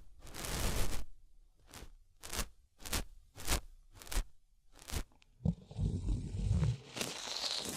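Close-miked ASMR trigger sounds: a run of short, separate scratchy strokes about half a second apart, then from about five and a half seconds a continuous rustling with a low rumble under it.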